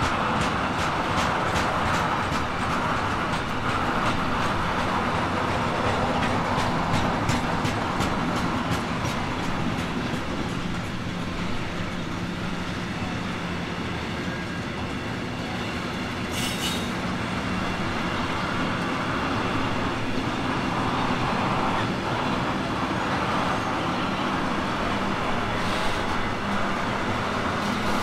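A train running past on the line, its wheels clicking rapidly over rail joints through the first third, the clicking then thinning out into a steady rumble. A brief high-pitched squeak comes a little past halfway.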